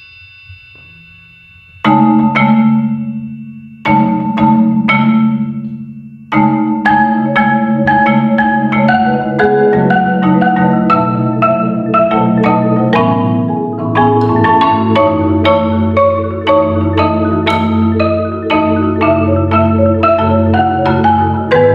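Two concert marimbas played as a duo: after a near-quiet pause, two loud struck chords about two seconds apart, each left ringing and fading. About six seconds in, they break into a continuous fast run of notes over sustained low tones.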